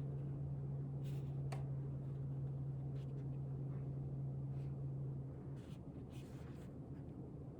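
Quiet room with a low, steady electrical hum that cuts off about five seconds in, and a few faint, short brushing sounds scattered through it.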